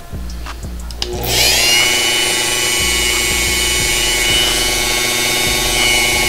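Dremel rotary tool with a fine-tip grinding stone switched on about a second in, its whine rising briefly as it spins up and then holding steady at its slow speed setting. The stone is working a rust spot out of the car's paint. Background music plays underneath.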